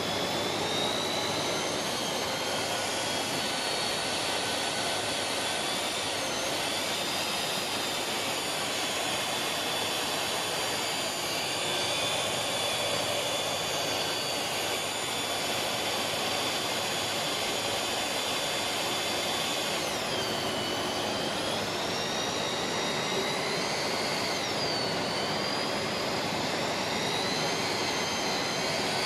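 Electric pipe facer of an HDPE butt fusion machine running with a steady high motor whine, trimming the pipe ends. The whine sags in pitch and recovers twice in the second half as the cutter is loaded.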